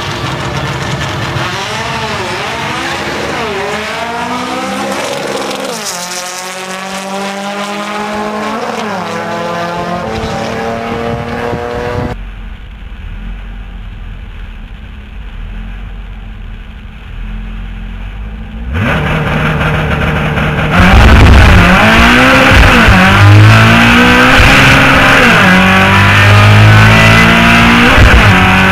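Air-cooled VW Beetle drag car engine revving up and down over and over. After a quieter stretch in the middle it comes back at full throttle, very loud, the revs climbing and dropping sharply several times as it shifts up through the gears.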